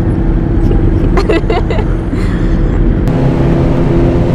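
Kawasaki motorcycle engines through a helmet microphone: a Ninja 400's parallel-twin idling while stopped at an intersection, then, after a cut about three seconds in, a ZX-10R's inline-four running steadily while cruising.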